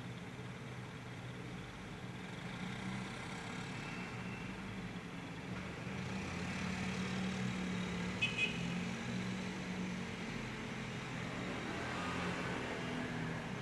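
Road traffic: a steady low hum with a vehicle passing, swelling over several seconds and then holding. Two short high chirps come about eight seconds in.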